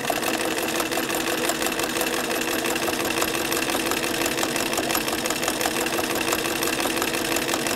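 Electric sewing machine running at a steady speed, its needle stitching through fabric and a paper foundation pattern with an even, rapid hum.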